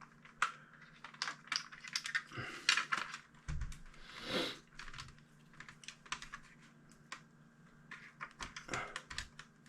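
Plastic retaining tabs of a BMW instrument cluster housing being pushed and prised apart: a scatter of small, sharp plastic clicks with a brief scrape about four seconds in.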